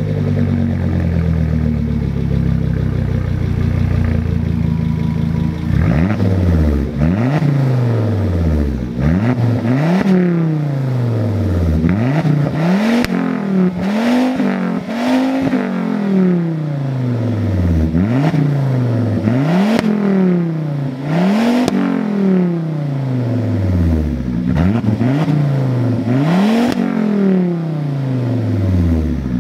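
Volvo V70 2.5T's turbocharged inline five-cylinder, breathing through a custom exhaust with a Wicked Flow Kamikaze 2.5" muffler and no resonator, idles steadily. About six seconds in it starts being revved in quick blips every second or two, each rising sharply and falling back to idle.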